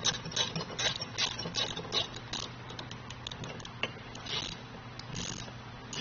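Ratchet wrench with a half-inch socket clicking as it runs a nut down onto the latch bolt, in repeated strokes: about two a second at first, then slower and sparser.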